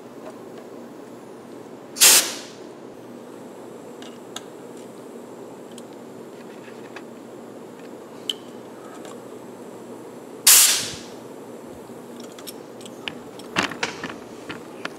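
Air-driven pop rivet gun pulling a rivet through a rubber seal and aluminium baffle, working twice: two short, loud hisses of air about eight seconds apart. A few light clicks near the end.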